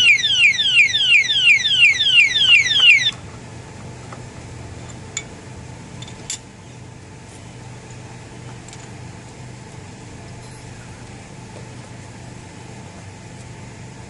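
Alarm padlock's built-in siren sounding continuously in rapid falling sweeps, about three a second, set off by the motorcycle being moved; it cuts off suddenly about three seconds in when the lock is switched off with its key. A few faint clicks follow as the lock is handled.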